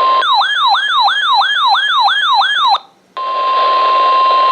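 Weather radio alert: the steady 1050 Hz warning alarm tone breaks off, and an electronic siren yelps for about two and a half seconds, rising and falling about three times a second. After a short gap the steady alarm tone comes back on.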